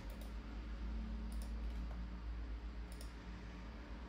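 Computer mouse buttons clicking, three separate clicks about a second and a half apart, over a low steady hum.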